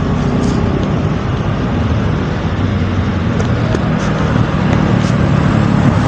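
Motorcycle engines running as the bikes come through the bend toward the microphone, over a steady hum of road traffic.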